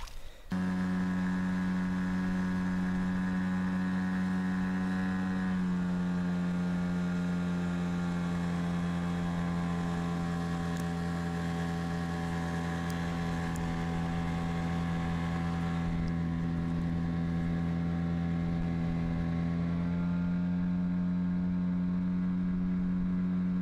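Motorboat engine running steadily at speed, a constant droning note with many overtones. Its pitch drops slightly about six seconds in and comes back up near twenty seconds.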